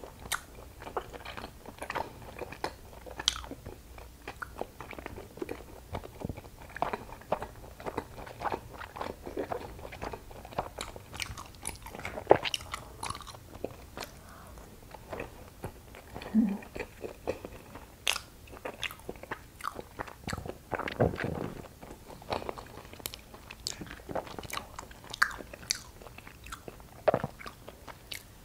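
Close-miked chewing and biting of soft, sticky glutinous rice cake: injeolmi, then a green rice cake. It comes as a dense run of short mouth clicks and smacks.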